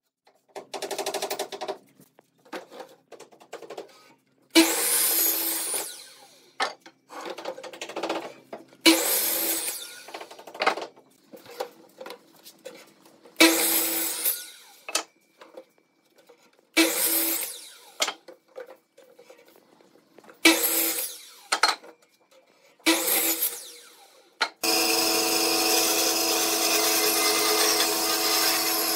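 An electric miter saw spinning up and cutting through wooden boards, about six short cuts a few seconds apart, each lasting a second or so. About 25 seconds in, a band saw starts running steadily and cuts through a block of wood.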